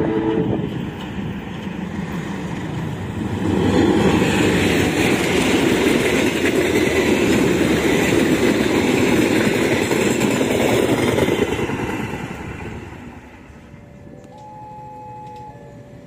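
Diesel-hauled passenger train passing at speed. A short horn blast sounds at the very start, then the locomotive and coaches rush past with loud wheel-and-rail noise that fades away about twelve seconds in. Near the end a locomotive horn sounds from further off.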